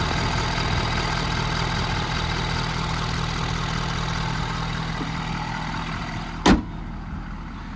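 A Ford 6.7 L Power Stroke diesel idling steadily, which the owner finds has no blow-by to speak of. About six and a half seconds in there is a single sharp bang, after which the engine sounds duller.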